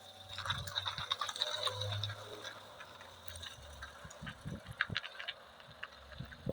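Motor ship's engine humming low, with scattered clicks and rattles over it.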